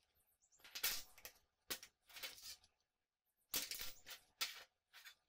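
Metal parts clattering and scraping on a steel-topped workbench as a cut half chainring and a caulking-gun frame are set down and shifted: a handful of sharp knocks in two groups, the first about a second in, the second past halfway.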